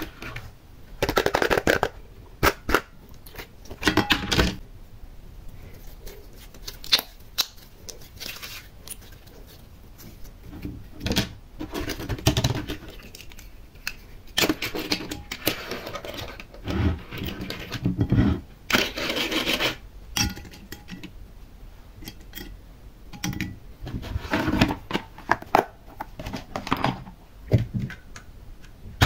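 Close-up handling sounds: irregular taps, clicks and scrapes as plastic toy cars and small decorations are handled and set against a glass baking dish, with short rustling stretches in between.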